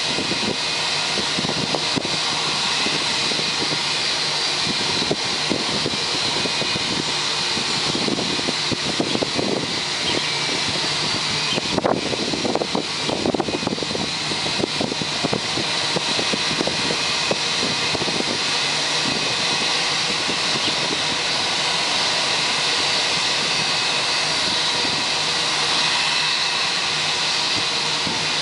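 Steady high-pitched turbine whine over a broad rushing noise from a parked Jetstar Airbus A320, with a patch of irregular crackle in the middle.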